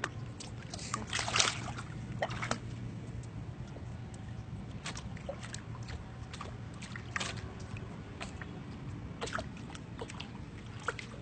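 Pool water splashing around a baby: a burst of splashing about a second in as the baby goes into the water, then small scattered splashes and sloshing as it floats on its back.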